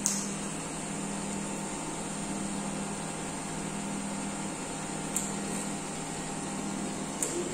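Steady hum of the eight small electric pumps and their cooling fans on a distillation column's intermediate-fraction draw unit, all running. A few brief hissing ticks come at the start, about five seconds in and near the end.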